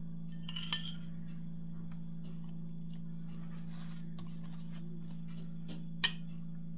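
Metal spoon scraping faintly and clinking as it spreads tomato pizza sauce over a pinsa base, with two sharper clinks, one about a second in and one near the end, over a steady low hum.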